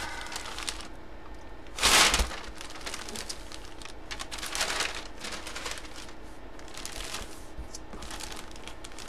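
Brown packing paper crumpled and pulled away, then the clear plastic bag around a jersey crinkling as it is handled. The loudest crinkle comes about two seconds in, with another near five seconds.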